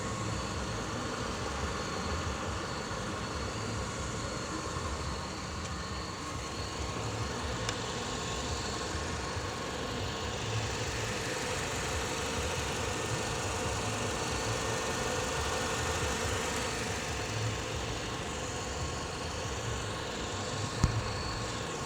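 Car engine idling steadily, with a single sharp click about a second before the end.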